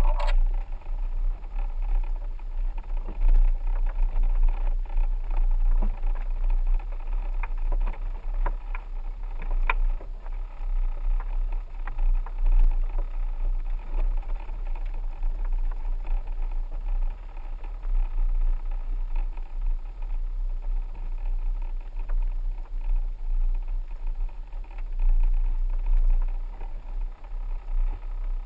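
A 4x4 driving slowly on a rough dirt road: a steady low rumble that keeps wavering in level, with a few sharp knocks.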